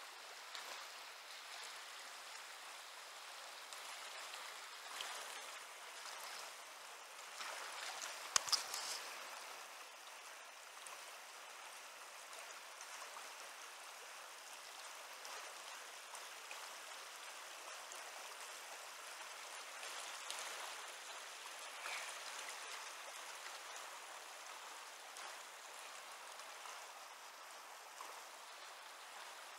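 River running high and fast past the bank, a steady rush of water. A couple of brief knocks sound about eight seconds in.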